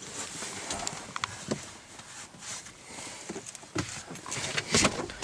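Irregular rustling, taps and knocks of someone rummaging around inside a car, searching the seats and the door side, with a louder knock near the end.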